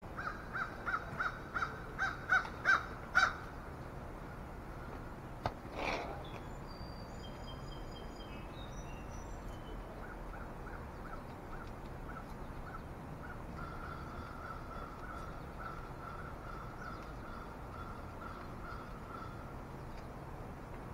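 Crows cawing: a quick run of about ten caws that grows louder over the first three seconds, then a single harsh caw about six seconds in. After that come brief high chirps from small birds and a long run of fainter repeated calls.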